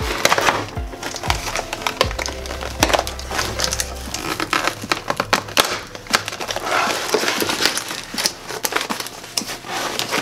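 Cardboard and plastic toy packaging crackling and crinkling as it is handled and pulled apart, a dense run of irregular sharp clicks and rustles. Background music plays underneath.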